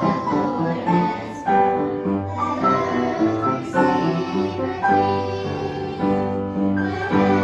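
Piano playing a melody over chords.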